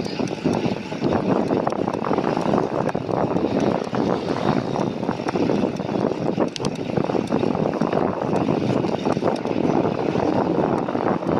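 Steady rushing wind noise on a bicycle's handlebar-mounted camera microphone while riding, mixed with the hum of surrounding city traffic.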